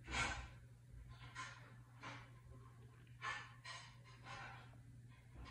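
Faint breathing close to a microphone, about half a dozen short breaths a second or so apart, over a low steady electrical hum.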